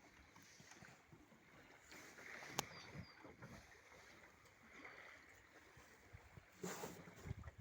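Near silence: faint handling noise, with a single sharp click about two and a half seconds in and a brief rustle near the end.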